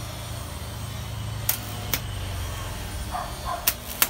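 Homemade spot welder built on three transformers, welding sheet metal: a steady low electrical hum with four sharp cracks of the welds firing, two about a second and a half in and two more near the end.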